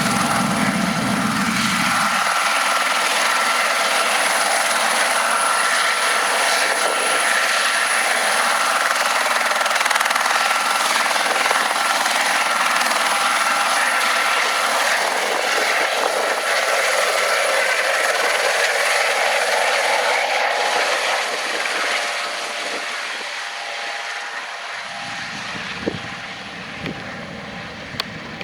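Airbus H130 (EC130 T2) helicopter in flight: its single turboshaft engine and rotor make a steady noise with a thin high whine. The sound fades away about three quarters of the way through.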